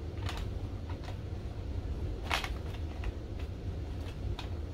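A few short clicks and taps of a hard plastic toy bank being handled and turned over, the loudest about halfway through, over a steady low hum.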